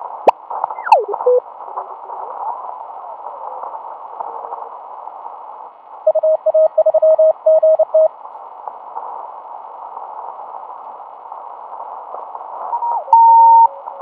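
Shortwave band hiss from a Drake 2-B tube communications receiver, squeezed into a narrow band of pitch by its 3.6 kHz passband, as the dial is tuned. A whistle glides down in pitch near the start; from about six seconds in, about two seconds of Morse code keyed at a steady tone; near the end a whistle slides up into a steady tone held for about a second.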